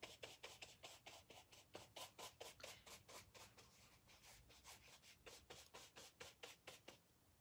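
Paintbrush stroking paint onto a canvas shoe: quick, faint scratchy brush strokes, about five a second, that stop near the end.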